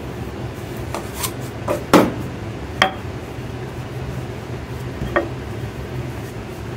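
A wooden rolling pin and a metal bench scraper handled on a marble slab: a handful of knocks and taps, the loudest about two seconds in and a couple with a brief ring, over a steady low hum.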